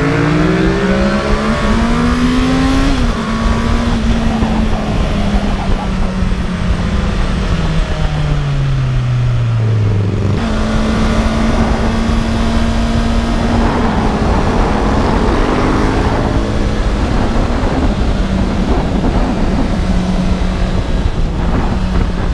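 Honda CB650R's inline-four engine, restricted to 35 kW, heard from the rider's seat with heavy wind rush: revs climb for the first few seconds, sink slowly, then after a sudden jump in the middle hold almost steady at road speed.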